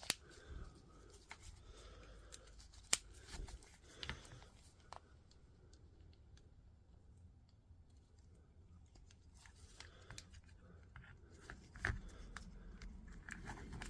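Faint handling noise: sparse sharp clicks and taps of metal and plastic parts of a DeWalt DCH273 rotary hammer's hammer mechanism being handled and fitted during reassembly, the loudest click about three seconds in.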